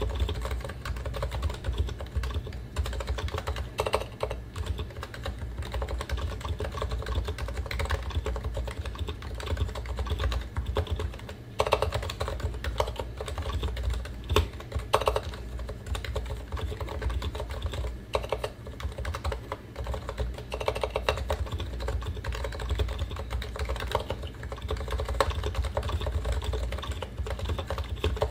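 Continuous typing on a Realforce R2 PFU Limited keyboard with 45g Topre electrostatic capacitive rubber domes, purple silent sliders and stock PBT keycaps. A dense, even run of keystrokes, with a few louder strokes standing out.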